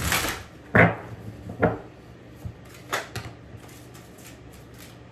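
Tarot cards being handled: a papery swish at the start, then a few sharp snaps and taps as cards are shuffled and laid on a table, the loudest just under a second in.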